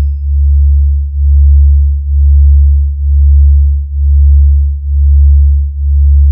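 A loud, deep sub-bass sine tone pulsing evenly about once a second, with nothing else above it: a bass-test tone in a DJ sound-check track.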